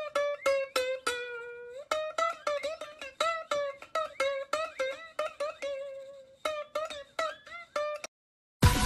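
Background music: a plucked-string tune of short, quick notes that bend in pitch. It breaks off about eight seconds in, and after a brief gap a louder track starts just before the end.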